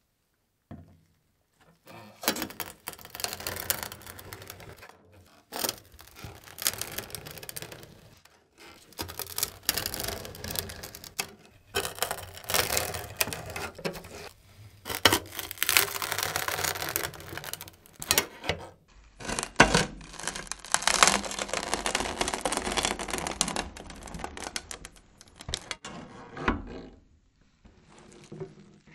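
Crunchy baguette crust crackling and crunching as the curved serrated blade of a bread guillotine chops down through it, cut after cut with short pauses between strokes.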